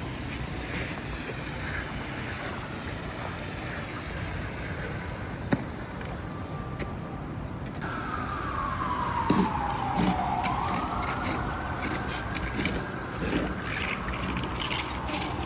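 Street traffic noise, then about eight seconds in an emergency vehicle's siren starts, its pitch sliding down and then back up in a slow wail.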